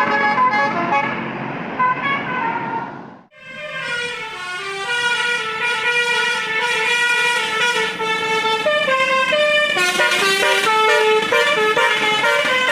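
Tour bus 'telolet' multi-tone horns playing a stepping melody of several notes. It breaks off sharply about three seconds in, then another horn tune starts and keeps going.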